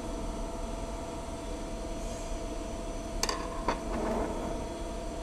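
Steady background hum, with two sharp metallic clicks about three seconds in and a brief rattle just after, from the metal parts of a 1917 Monroe Model F mechanical calculator being handled as its keyboard side piece is worked loose.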